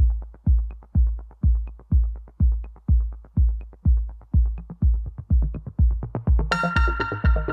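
Electronic background music: a steady kick drum about twice a second with light ticks between, and a synthesizer chord coming in near the end.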